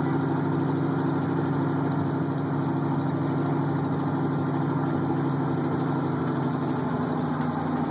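Monster truck engine running steadily with an even, unchanging pitch and no revving, heard from inside the cab.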